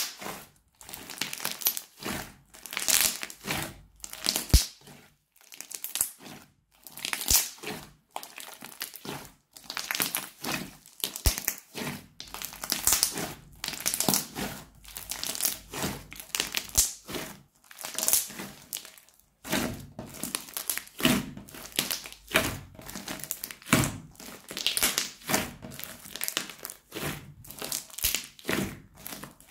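Crunchy fluffy slime being squeezed and kneaded by hand, crackling and squishing in repeated bursts about once a second as air pockets in it are pressed and pulled apart.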